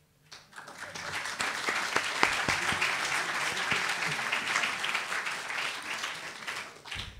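Audience applauding, a dense patter of many hands that builds about half a second in and dies away near the end.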